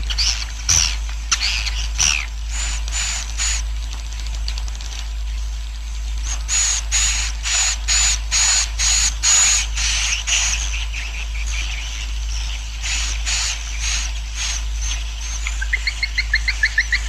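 A roosting colony of swiftlets (walet) twittering, the 'suara inap' call used to lure swiftlets to roost and settle in a bird house. It comes as runs of high chirps, about three or four a second, with a faster series of short clicking notes near the end, over a steady low hum.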